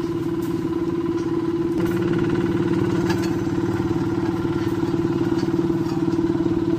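Small walk-behind double-drum road roller's engine running steadily as it compacts fresh hotmix asphalt, a constant even hum that does not change.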